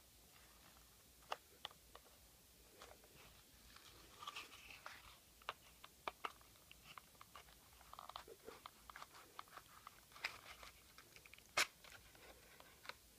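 Scattered light clicks and crinkling of a homemade paper-and-cardboard toy handgun being handled and loaded, with one sharper click near the end.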